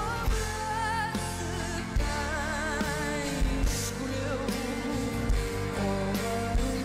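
Live band playing while a woman sings with a wavering vibrato. Acoustic and electric guitars and a drum kit back her, with kick drum hits.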